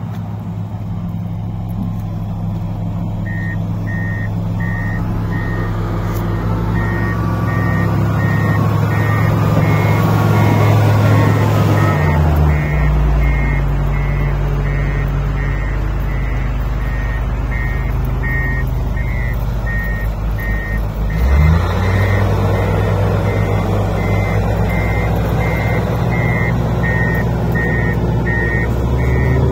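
Diesel engines of heavy earthmoving machines, a wheel loader and a motor grader, running. A reversing alarm beeps steadily from a few seconds in. The engine note drops partway through and picks up again about two-thirds of the way in.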